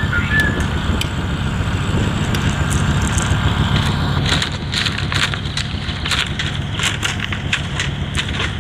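Mini excavator's diesel engine running steadily at idle. From about four seconds in, a spade scrapes and crunches in the soil with many short sharp clicks.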